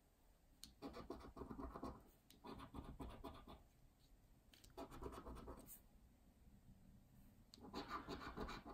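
A coin scraping the scratch-off coating from a paper scratchcard, in four short bouts of scratching about a second each with brief pauses between. Faint.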